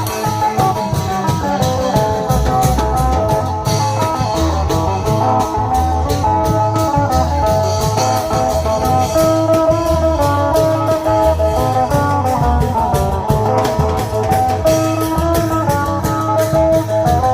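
Isan klong yao long-drum band music: a plucked-string melody over steady drum beats and rapid cymbal strikes.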